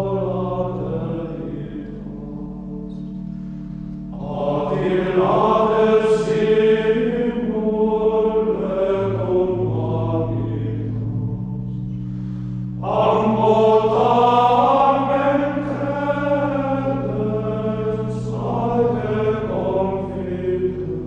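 Devotional singing over sustained keyboard chords. The held chords change only every few seconds, and the sung phrases swell up loudest about four seconds in and again about thirteen seconds in.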